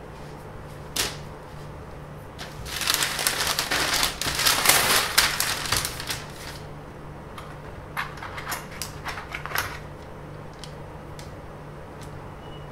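Paper rustling and crinkling for about four seconds as a flexible ruler is laid and shaped on a large sheet, then a run of light clicks and taps from handling the ruler and a drafting tool on it. A single click comes about a second in, and a low steady hum sits underneath throughout.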